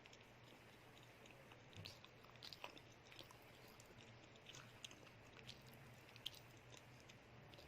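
Faint close-up chewing of a cheese stick, with scattered small crackly clicks of mouth and food sounds.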